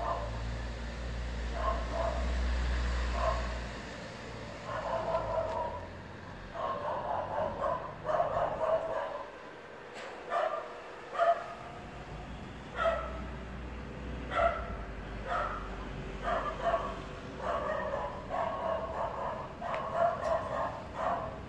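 A dog barking over and over in short, irregular runs of barks. A low rumble sits underneath during the first few seconds and again a little before the middle.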